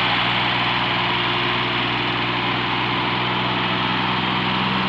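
Mini tractor engine running steadily, holding one even speed.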